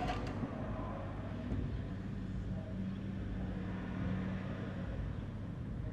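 Steady low hum of a running vehicle engine, with a slightly higher tone joining for a few seconds in the middle.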